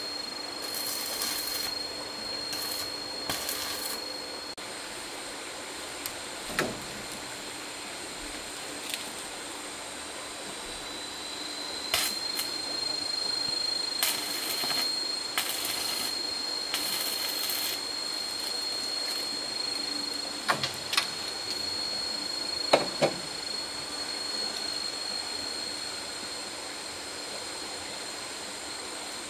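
A steady high-pitched whine with a gap of several seconds, over which a handful of sharp knocks sound, the loudest about twelve and twenty-three seconds in, along with a few short bursts of hiss.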